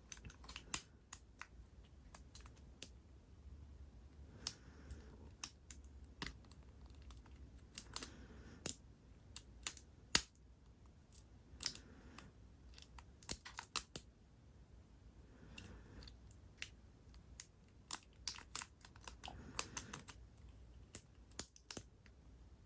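Lock pick and tension wrench working in a Yale padlock's keyway: irregular small metallic clicks and light scraping as the pins are pushed, several a second at times with short pauses between.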